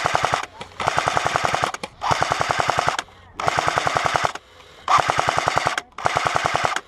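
Airsoft rifle firing full-auto in about six rapid bursts of roughly a second each, with short pauses between them.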